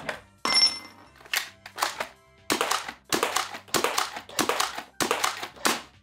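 A quick run of about a dozen sharp clacks and pops from foam dart blasters being pumped and fired, some coming in close pairs, over background music.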